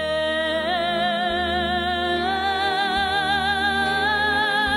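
A woman singing a slow ballad, holding one long note with a wide vibrato that steps up in pitch about two seconds in, over a soft sustained instrumental accompaniment.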